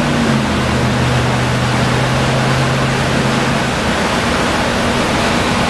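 Vacuum truck's suction tube drawing water and debris out of a stormwater separator chamber: a loud, steady rushing. Under it runs a low engine hum that dips in pitch just after the start and partly drops away near four seconds in.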